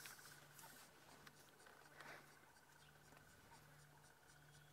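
Near silence: faint background with a low steady hum and a faint high pulsing tone.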